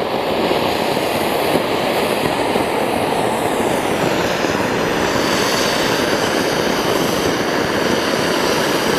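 King-size anar (flower-pot ground fountain firework) spraying a tall column of sparks, with a steady, loud rushing hiss.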